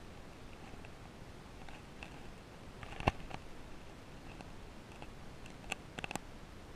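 Faint underwater ambience heard through a submerged camera: a steady low hiss with scattered small clicks and ticks, one sharper click about three seconds in and a quick cluster of clicks near the end.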